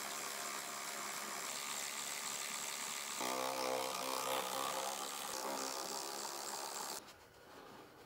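Handheld power driver running, backing out rusty handlebar bolts. A steady motor pitch joins about three seconds in, and it stops abruptly about seven seconds in.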